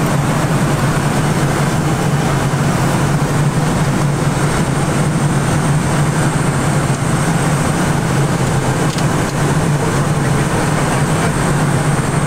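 Steady cockpit noise of an Ilyushin Il-86 airliner: a continuous rush with a low hum underneath.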